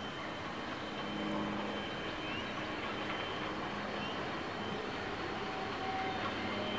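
Double-headed steam train of PB15 448 and AC16 221A steam locomotives approaching in the distance, heard as a steady rumble. A low droning tone comes and goes several times, and faint bird chirps sound over it.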